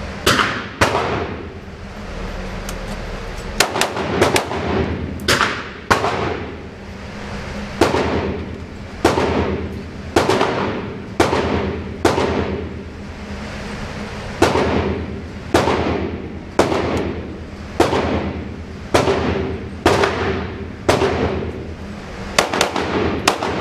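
Handgun shots on an indoor range, about one a second, each sharp crack followed by a short echo off the walls. A steady ventilation hum runs underneath.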